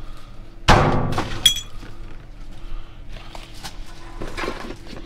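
Junk clattering inside a dumpster: a loud crash about a second in, then a short bright ringing clink, followed by smaller knocks of items being shifted.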